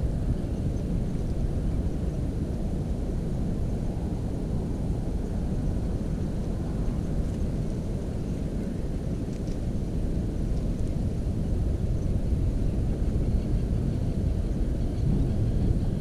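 Steady low rumbling outdoor noise that grows slightly louder over the last few seconds, with only faint, scattered high chirps above it.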